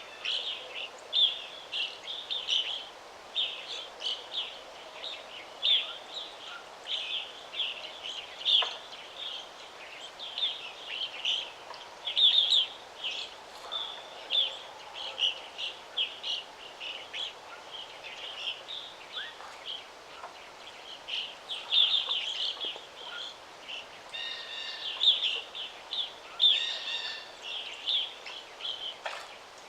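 Several songbirds chirping and twittering continuously in short rapid notes, with a faint steady background hiss of breeze.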